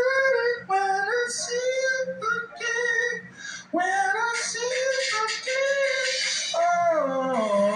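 A high voice singing long, drawn-out wordless notes in phrases over a pop ballad backing, sliding down in pitch near the end.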